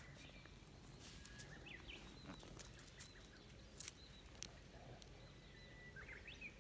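Faint outdoor ambience with distant birds chirping: short high notes and quick sliding calls, clustered about two seconds in and again near the end, with a few soft clicks over a low steady background hum.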